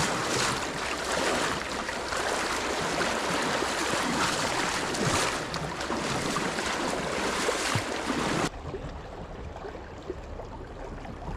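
Loud, steady rush of river water over a shallow riffle. It cuts off abruptly about eight seconds in, leaving a quieter, steady flow of the stream.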